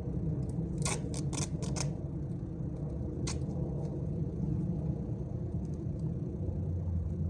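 Duct tape being pulled and torn off the roll: a quick run of five sharp crackles about a second in, and one more a second and a half later, over a steady low rumble.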